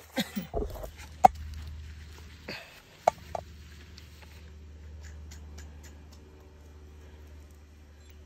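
Steel washers and nuts clinking against the bolts and base plate as they are put on and threaded by hand onto a basketball hoop's anchor bolts: a few sharp metallic clicks, the loudest a little over a second in and another about three seconds in, over a steady low hum.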